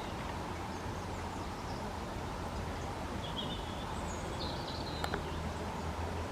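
Small birds give a few short high chirps over a steady low background rumble, with a single sharp click about five seconds in.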